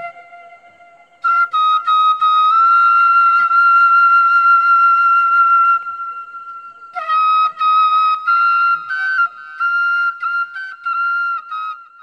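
Solo flute music: after a brief pause, a long held high note, then a run of short separate notes from about seven seconds in.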